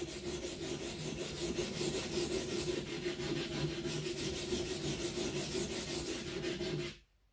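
Boning knife's steel blade scraped back and forth on a flat sharpening stone in quick, even strokes, held at about 15 degrees to grind a shoulder bevel below the 25-degree sharpening angle. A steady hum runs beneath the strokes, and both stop abruptly near the end.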